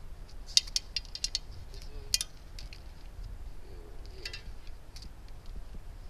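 Light metallic clinks and rattles from small metal parts being handled at a bicycle. They come in short clusters: a busy run in the first second and a half, and single clinks about two and four seconds in, over a steady low rumble.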